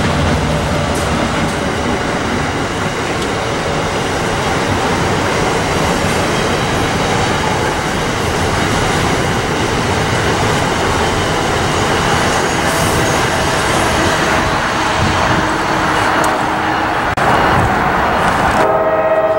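A passenger train passing close by, with a steady rush of wheels on rails. Near the end a train horn sounds, several notes held together.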